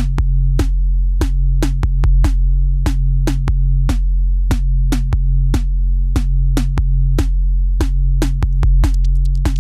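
Electronic background music: a drum-machine beat over a steady bass line, with a quick run of hi-hat-like ticks near the end.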